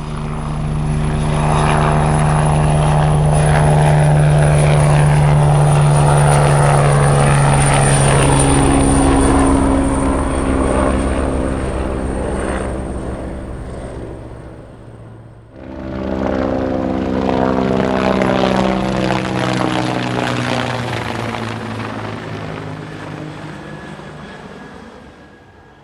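Helicopter flying past twice. Each time the sound swells up loud and then fades away, its pitch dropping as it goes by. The second pass cuts in abruptly about fifteen seconds in and dies away near the end.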